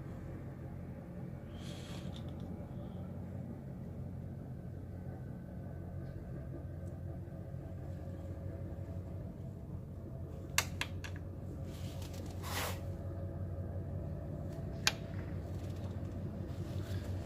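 A steady low mechanical hum, with a few sharp clicks and knocks from handling tools or parts, two close together about two-thirds of the way in and another near the end.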